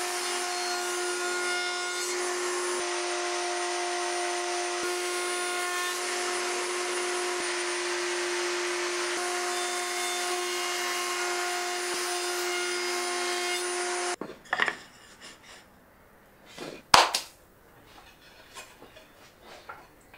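Table-mounted router with a bearing-guided edge bit running at a steady high whine while it rounds over the edges of wooden drawer slats, its tone shifting slightly as each pass is taken. It cuts off abruptly about 14 seconds in, and a few knocks of wooden slats being handled follow, one sharp knock a few seconds later.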